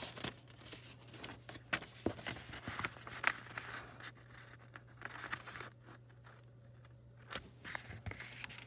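A square sheet of origami paper rustling and crinkling as it is folded in half diagonally and the crease is pressed down by hand. The rustles come in short, irregular strokes, with a quieter stretch about two-thirds of the way through.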